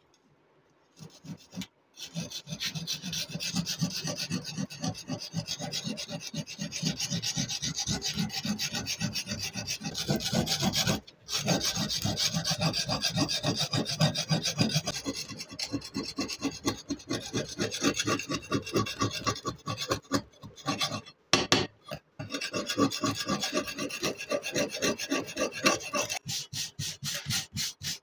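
A steel tool scraping rust off a rusty steel cleaver blade in fast back-and-forth strokes, about four a second, with a few short breaks.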